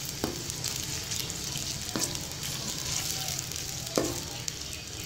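Sliced onions sizzling in hot cooking oil in a metal kadhai, with a spatula stirring them and knocking against the pan three times, about two seconds apart.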